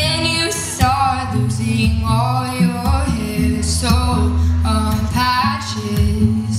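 A woman singing into a microphone over acoustic guitar accompaniment, holding long notes that bend in pitch.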